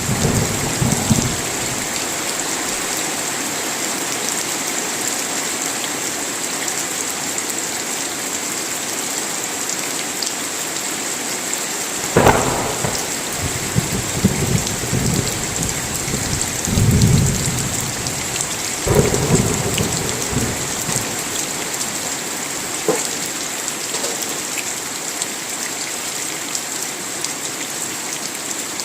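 Steady rain with thunder. A sharp clap comes about twelve seconds in and rolls on in low rumbles for several seconds, and a fainter rumble sounds at the very start.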